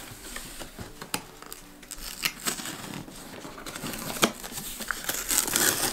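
Packaging being handled and torn open: plastic and cardboard crinkling and rustling, with irregular sharp clicks and snaps, busiest near the end.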